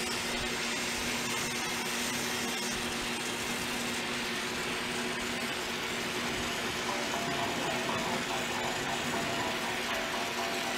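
Steady hiss of a glassblowing lathe burner's flame, with a steady low hum running under it from the glass lathe.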